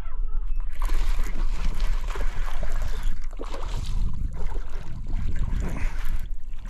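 Hooked bass splashing and thrashing at the water's surface right by the bank as it is reeled in, over a steady low rumble.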